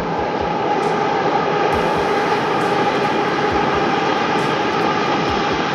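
Metro train running past on an elevated viaduct: a steady loud rumble with a whine running through it, growing a little louder about a second in.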